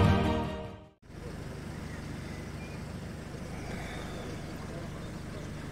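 Intro music fading out within the first second, then after a brief gap a steady low outdoor rumble with faint distant voices.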